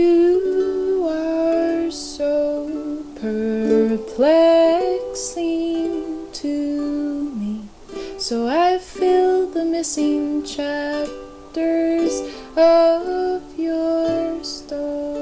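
Soft singer-songwriter song: a woman singing long, gliding phrases over a sparse instrumental accompaniment, the music coming in suddenly at the start.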